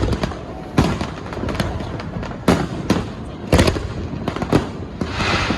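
Aerial fireworks bursting: a string of sharp bangs at irregular intervals, with a crackling hiss near the end.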